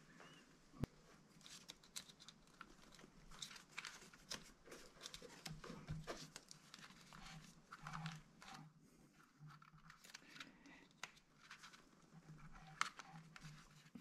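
Faint rustling and scattered light clicks of a motorcycle's wiring harness being handled as a new cable is pulled through it on a guide wire, with a sharper click near the end.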